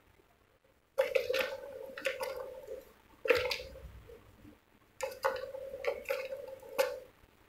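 Plastic balls rolling and rattling round the tracks of a three-tier plastic cat ball-track toy as a cat bats them, in three bursts, each starting with a sharp click.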